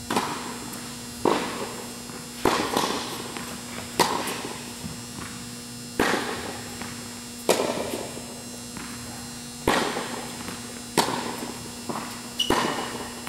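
Tennis ball hit back and forth with rackets in a large indoor tennis hall, each hit a sharp pop with a long echo, about one every one to two seconds. A steady low hum runs underneath.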